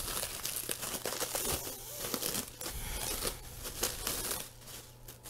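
Plastic cling wrap crinkling as it is peeled by hand off a ball of pie dough: a run of irregular crackles.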